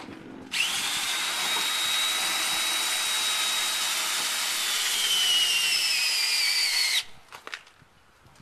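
Cordless drill turning the crank of a travel trailer's tongue jack: it starts about half a second in, runs steadily with a high whine, the whine falls in pitch as the drill slows over its last two seconds, and it stops suddenly about seven seconds in.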